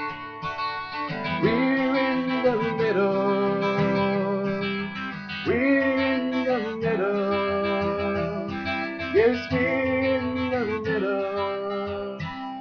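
Strummed acoustic guitar accompanying a man's voice singing three long wordless phrases, each sliding up into its note.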